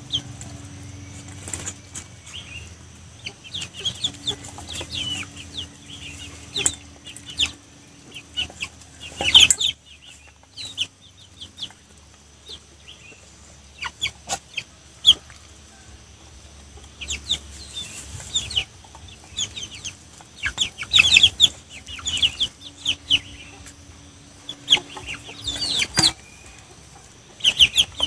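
Chickens clucking and giving short high calls while pecking feed from a metal bowl, with many sharp clicks of beaks striking the bowl. There are louder flurries about a third of the way in and again in the second half.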